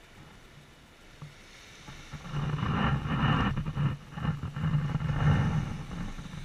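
A ghost shrimp pump being worked down into wet sand and pulled up, sucking in sand and water. It makes a rough rushing sound that starts about two seconds in and lasts about three and a half seconds.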